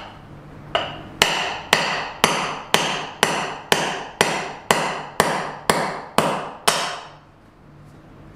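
Hammer knocking the old wheel studs out of a Honda Civic rear hub: about thirteen sharp metal strikes, roughly two a second, each ringing briefly. The strikes stop about seven seconds in.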